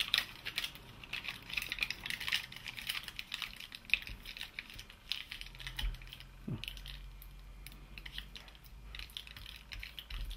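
Adhesive tape being pressed and rubbed down by fingers over the ports of an ABS module's metal hydraulic block, giving a run of small irregular crackles and taps.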